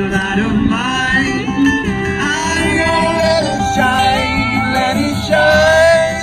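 Live band playing through PA speakers: a man singing a melody over electric and acoustic guitars, holding a long note near the end.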